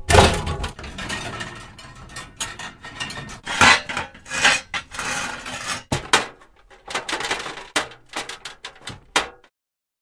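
Pieces of scrap metal clanking, rattling and scraping against each other in a string of short handled hits. There is a loud clank at the start and a sharp metallic impact about six seconds in, followed by quicker, lighter clinks.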